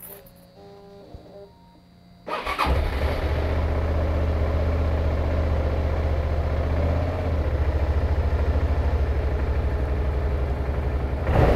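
Sport motorcycle engine started on the electric starter after a fresh oil change, so the new oil circulates before the level is rechecked. A faint high whine is heard at first, then the engine catches about two seconds in and idles steadily. It gets briefly louder near the end.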